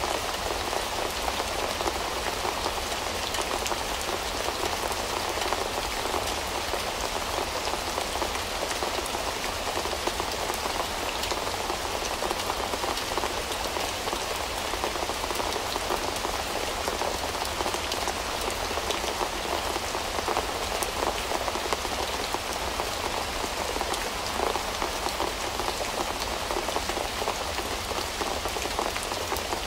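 Steady rain: a dense, even patter of many small drops that keeps up without let-up or change.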